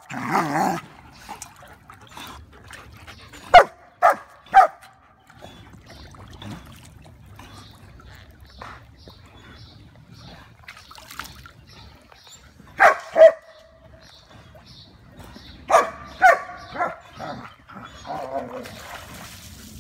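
A dog barking in short, sharp bursts: three barks about three and a half seconds in, two more near the middle, and a quick run of several later on, followed near the end by a softer, wavering whine.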